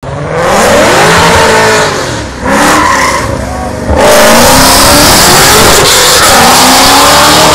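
Ford Shelby GT500's supercharged V8 accelerating hard, its pitch climbing in rising pulls with a drop at a gear change about two seconds in. It is loudest as the car passes close about four seconds in, then stays loud with a wide hiss over the exhaust note.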